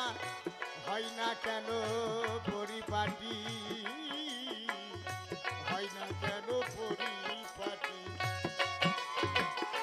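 Bengali Baul folk music between sung verses: a wavering melody line over a regular beat of drums with deep bass strokes.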